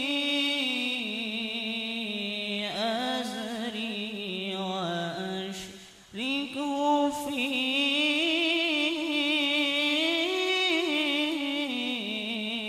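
A young man's voice chanting the Quran in melodic tilawah style into a microphone, drawing out long, wavering held notes. He breaks off briefly for breath about six seconds in, then carries on.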